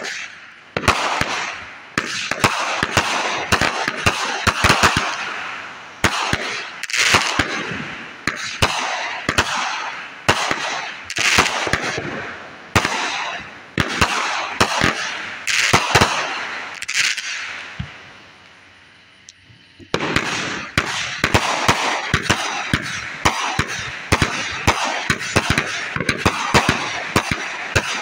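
Aerial fireworks launched in quick succession: sharp bangs of shells bursting, with crackling after them. The shots die away about two-thirds of the way through, then a new, denser volley starts.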